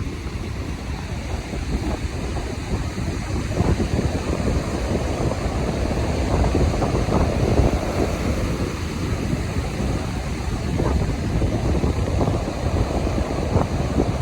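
Strong wind buffeting the microphone in gusts, over the steady wash of ocean surf.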